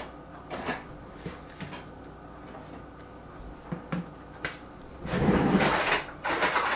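Wooden chopsticks tapping and clicking on a ceramic plate while dressed salad leaves are moved about, with a louder rustling stretch about five seconds in.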